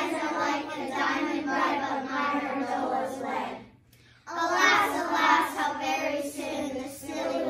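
A group of young children reciting a poem together in unison, in a rhythmic chant, with a short pause for breath about halfway through.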